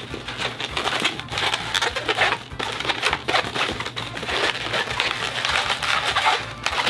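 Yellow 260 latex twisting balloon being twisted and squeezed by hand into the small hind-leg bubbles, latex rubbing on latex in irregular rubbing squeaks.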